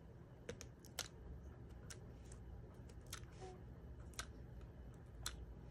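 Faint, scattered light clicks and taps of a plastic craft pick tool lifting small foam adhesive dots off their backing sheet and pressing them onto cardstock. About seven sharp clicks, the loudest about a second in.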